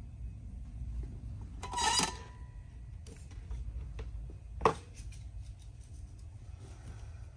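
Small metallic handling noises at a soldering bench while wires are soldered onto battery terminals: a brief metallic rattle about two seconds in, a single sharp click a little past halfway, and light ticks and rustling between.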